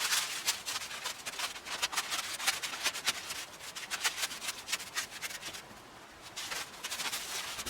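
Masking tape and paper being peeled and pulled off the freshly painted truck cab: a quick, irregular run of scratchy rustling and tearing strokes that eases off for a moment about six seconds in.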